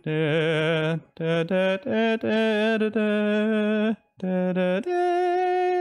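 A man singing a short wordless tune in several held notes, some with vibrato, ending on one long steady note.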